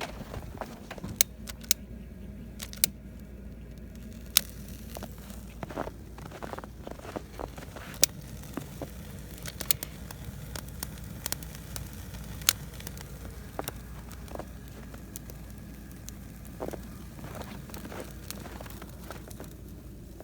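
Freshly lit wood campfire crackling, with irregular sharp snaps and pops.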